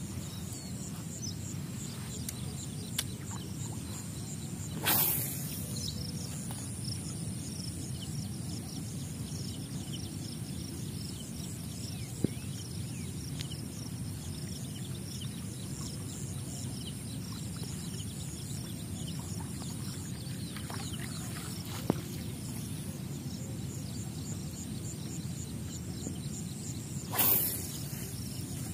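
Outdoor marsh ambience: a steady low noise under a faint, continuous high-pitched insect chirring. Two brief rushing noises break in, about five seconds in and near the end, and there are two sharp clicks between them.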